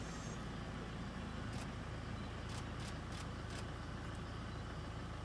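Safari vehicle's engine idling with a steady low hum, with a few faint clicks over it.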